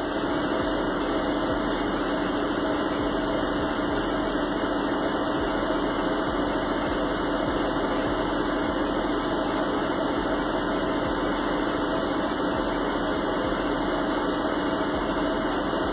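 Steady, even droning noise with no separate events and no voices.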